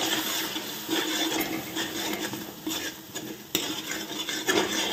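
Metal spoon scraping and stirring around the bottom of an aluminium cooking pot in irregular strokes as yogurt is mixed into a frying onion and ginger-garlic masala, over a sizzle. There is a sharp knock of the spoon on the pot about three and a half seconds in.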